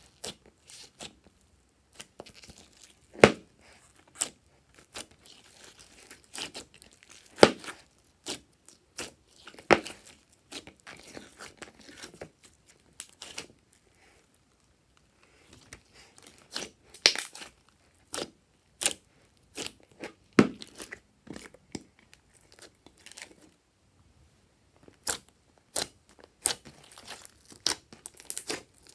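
Glossy slime being stretched, folded and pressed, giving irregular sharp pops and crackles from trapped air, with a handful of louder pops.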